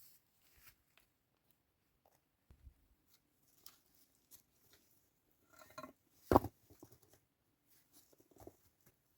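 Scattered small clicks, scrapes and rustles of something being handled, with one sharp knock about six and a half seconds in.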